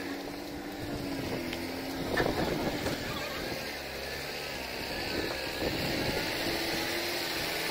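Diesel engine of a truck-mounted borewell drilling rig idling steadily, with a few short knocks about two seconds in.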